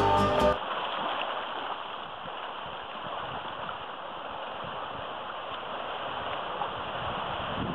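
Small sea waves washing in over sand and around boulders, a steady rush of water with no pattern of single breakers. Background music cuts off about half a second in.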